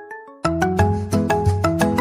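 Smartphone ringtone playing: a melody of quick, short notes over a bass line, which dies away and starts again loudly about half a second in.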